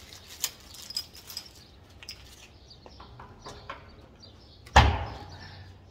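Attachments being fitted by hand onto a Craftsman stainless-steel shop vac: light plastic clicks and rustles, then one loud knock against the vac about five seconds in.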